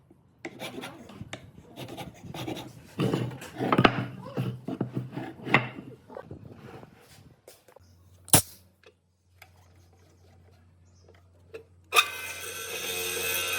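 Wood being rubbed and scraped by hand in irregular strokes for several seconds, then a single sharp knock. After a short quiet stretch, a power tool switches on and runs steadily near the end.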